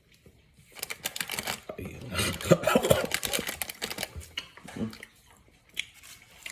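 A quick run of close clicks and rustles with short muffled vocal sounds, from a person handling and eating a piece of prickly pear cactus candy.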